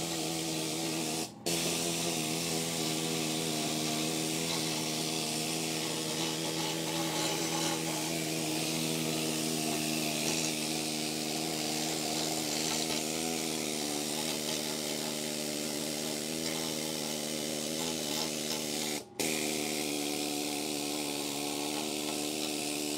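An electric power tool running at a steady speed: a constant motor hum with a hiss over it. The sound cuts out briefly twice, once near the start and once about four seconds before the end.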